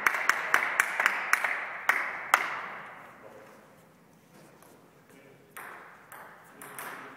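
A celluloid table tennis ball clicking about ten times in the first two and a half seconds, the gaps widening, each click ringing in a large echoing sports hall. After that there are only a few softer sounds.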